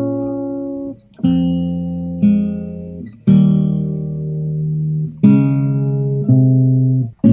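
Music: acoustic guitar chords, each struck once and left to ring out, with a new chord every one to two seconds and no singing yet.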